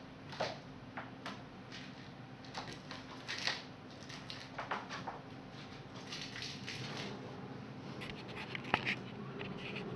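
A kitten playing among paper and wooden blocks: scattered scratches, rustles and light taps, with one sharper click near the end.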